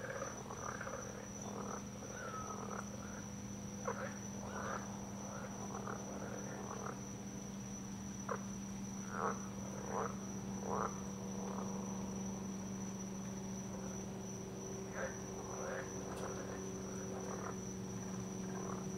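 Night chorus of frogs: short, irregular croaking calls scattered through, over a steady high-pitched insect drone and a low steady hum.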